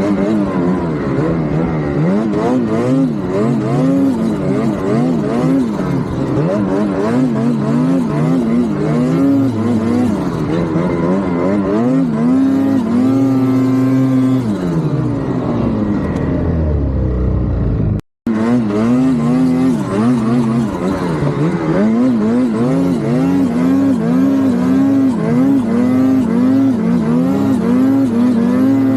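Turbocharged engine running, its pitch wavering up and down continuously. Midway it holds one pitch for a couple of seconds and then falls away, and the sound drops out for an instant at a cut before resuming.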